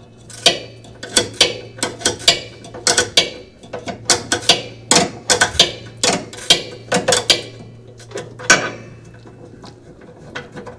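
Hand ratchet wrench clicking in short irregular runs while tightening the bolts that hold the brake assembly under a Speed Queen washer; the clicking thins out to a few faint clicks about eight and a half seconds in.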